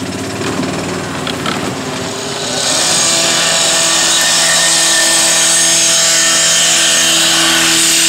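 A petrol power saw starts cutting about three seconds in and runs steadily at high speed: a loud, even whine with a strong hiss.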